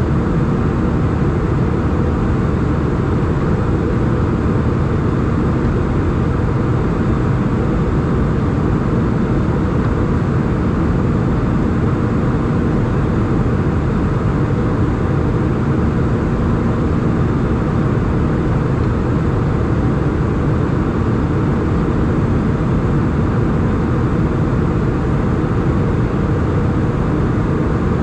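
Airbus A320 cabin noise in flight: jet engines and airflow as a steady, deep, even rumble, with a faint steady hum.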